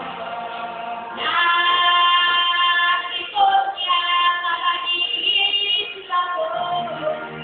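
Stage-show music with a high choir of voices holding long sung notes, starting about a second in and breaking off near six seconds, after which the accompaniment carries on.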